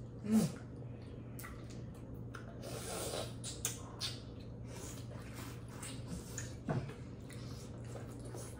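Seafood-boil eating noises: scattered clicks and crackles of crab and shrimp shells being cracked and peeled, with wet chewing and smacking. Two brief falling vocal sounds, about half a second in and again near the end, over a steady low hum.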